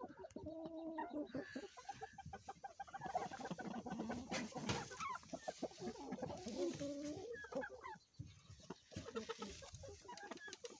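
Several chickens clucking at once: many short, overlapping calls.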